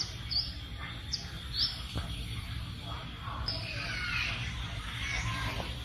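Birds chirping: one repeats a short, high chirp about every three-quarters of a second, while others twitter more busily in the middle and later part, over a steady low outdoor rumble.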